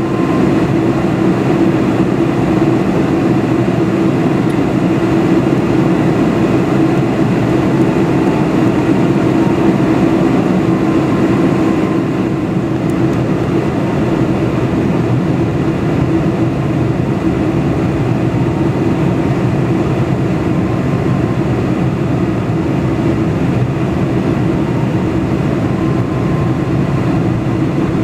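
Cabin noise of a Boeing 747-400 in descent, heard from a window seat: a steady roar of engines and airflow with a low hum, dropping slightly about twelve seconds in.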